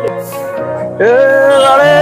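Background music: a song, with one long held note that slides up into place about a second in.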